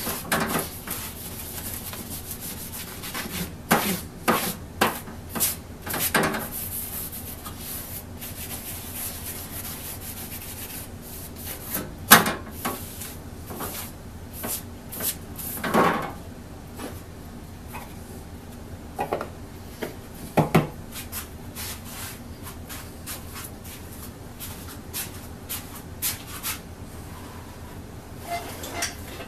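Paper towel rubbing paste wax along a hand saw's steel blade on a wooden bench: irregular swishing strokes, with a few sharper knocks.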